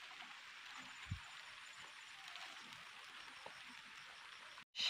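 Light drizzle: a faint, steady hiss of rain falling on grass and water, with one soft knock about a second in. The sound cuts out abruptly for a moment near the end.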